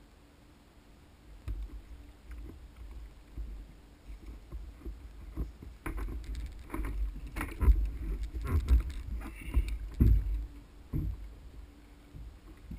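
Irregular heavy thumps and knocks against a plastic sit-on-top kayak as a large wahoo is handled, lifted and laid back across the angler's lap. The knocks start about a second and a half in and are loudest in the second half.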